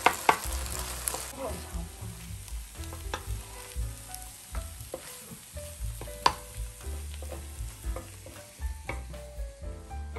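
Wooden spatula stirring and scraping fried rice on a hot grill pan, with irregular clacks against the pan over a sizzle. The sizzle is strongest in the first second or so.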